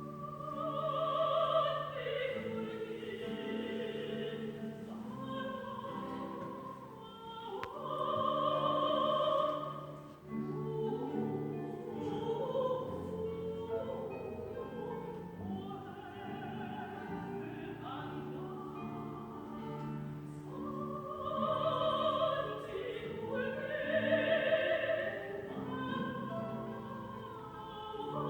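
A soprano sings long held notes with vibrato in operatic classical style, over a guitar orchestra accompaniment.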